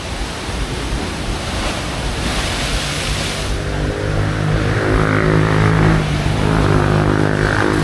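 Surf breaking and washing over a rocky shore, with one wave crashing louder about two to three seconds in. From about then a steady engine hum rises under it and keeps running.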